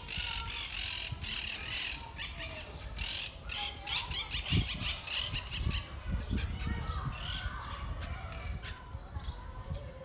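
Monk parakeets squawking: a rapid string of harsh, scratchy calls, densest through the first four seconds, then thinning to scattered calls.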